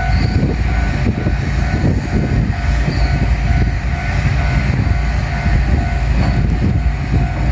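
Japanese level-crossing warning bell ringing repeatedly, a clear ringing tone, over a heavy, uneven low rumble.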